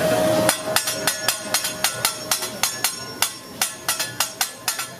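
A hibachi chef's steel spatula and knife clacking in a quick, slightly uneven rhythm of about four or five metallic clinks a second, each ringing briefly. The clinking starts about half a second in, where a steady tone stops.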